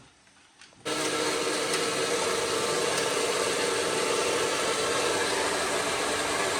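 Momo steamer on the stove, a steady rushing hiss of steam with a low hum under it, starting abruptly about a second in after near silence.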